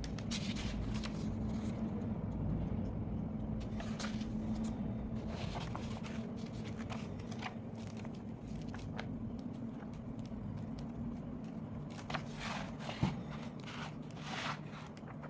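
Scratchy strokes and rustles against paper, in irregular short bursts that come thicker near the end, over a steady low hum.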